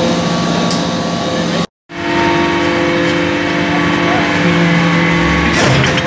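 Hydraulic briquetting press compacting copper chips: the steady, loud hum of its hydraulic power unit, with several steady tones. The sound cuts out completely for a moment just before two seconds in, and a metallic rattle rises near the end.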